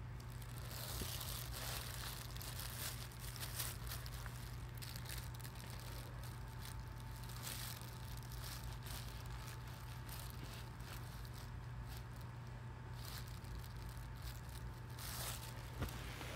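Soft, scattered rustling and crinkling as a cat wrestles a person's hand, fur and skin rubbing together, over a steady low hum.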